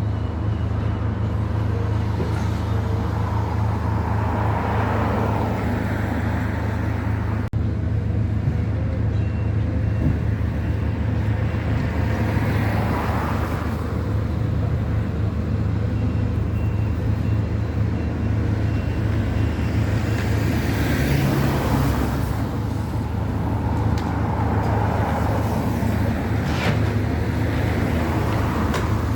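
Steady low engine hum with traffic going by, swelling and fading every several seconds.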